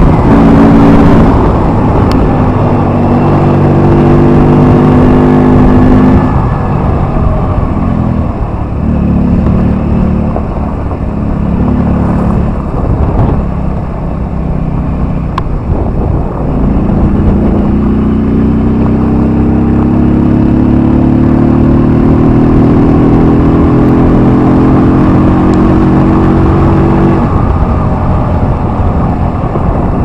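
Keeway Benda V-Cruise (BD300) V-twin motorcycle engine and exhaust running hard. It holds steady high revs for several seconds, then drops into lower, uneven surges. About midway it climbs in one long, steady rise in pitch as it accelerates, and the rise breaks off a few seconds before the end.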